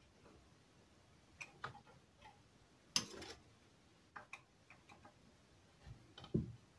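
Scattered light clicks and taps of small parts and tools being handled on a workbench, with one sharper click about three seconds in and a dull knock near the end.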